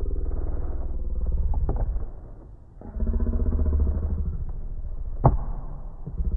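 Motor vehicle engine running with a pulsing low rumble, easing off about two seconds in and picking up again a second later. A single sharp click about five seconds in.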